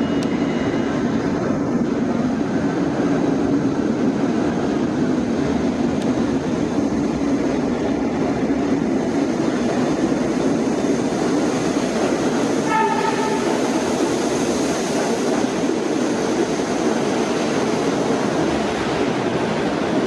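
Retired New York City subway R42 cars hauling a garbage train through an underground station: steady, loud running noise of the train on the track, with one short horn blast about 13 seconds in.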